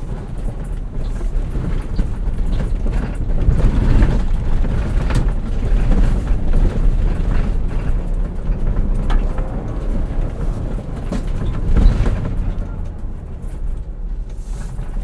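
Cabin sound of a Ford Bronco with its 2.7-litre EcoBoost V6 driven over bumpy off-road ground: the engine running under varying throttle, with irregular knocks and rattles from the suspension and body over the bumps.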